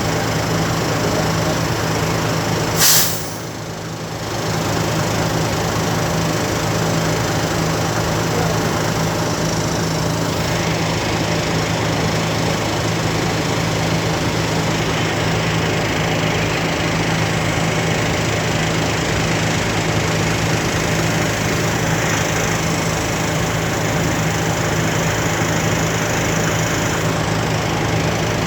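Ferry engine running steadily with a low hum. About three seconds in there is a short, loud hiss.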